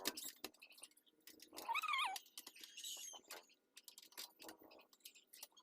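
A cat meows once, a short wavering call about two seconds in, among scattered light clicks and taps.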